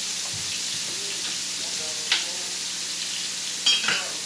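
Flour-battered cube steak frying in a pan, a steady sizzle, with a sharp click about two seconds in and a short clatter near the end.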